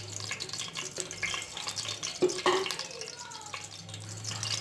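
Cooking oil heating in an aluminium pressure cooker on a lit stove: a steady hiss with faint scattered crackles, and one sharp knock a little after two seconds in.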